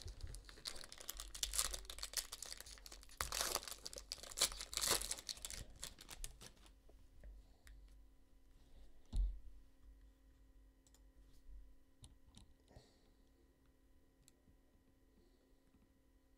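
Foil wrapper of a basketball trading-card pack being torn open and crinkled for about six seconds, then quieter handling of the cards with scattered light clicks and a soft thump about nine seconds in.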